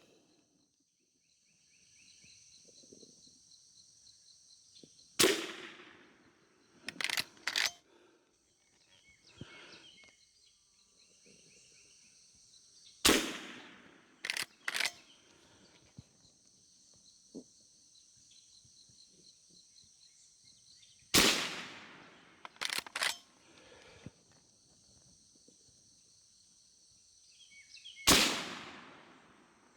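Four single .22 rimfire shots from a Marlin 39A lever-action rifle, about eight seconds apart, each with a short ringing tail. After each of the first three shots come two quick metallic clacks as the lever is worked to eject the case and chamber the next round.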